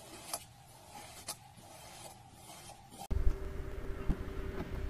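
A knife slicing through kinetic sand: soft, gritty cutting noise with a couple of sharper ticks. About three seconds in it gives way abruptly to a louder, steady low background hum with a held tone.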